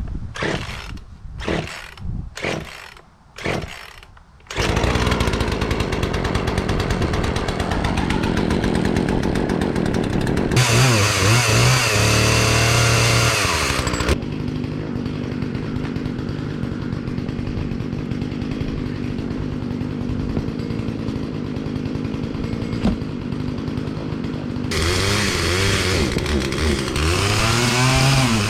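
Poulan two-stroke chainsaw: a few short bursts, then the engine catches about four and a half seconds in and runs steadily. It is revved up high from about ten to fourteen seconds in and again near the end.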